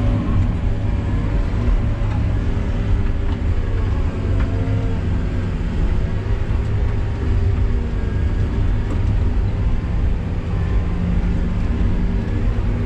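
Feller buncher's diesel engine and machinery running steadily under load, heard from inside the cab as a loud, even drone. The pitch wavers briefly about four seconds in.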